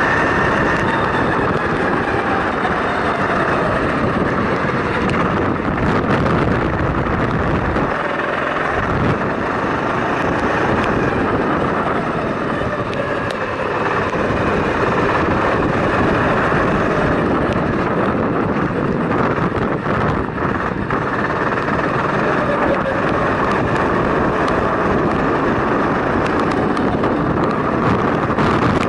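Go-kart engine running hard, heard from on board the kart, its pitch sliding up and down as the throttle is opened and eased through the corners.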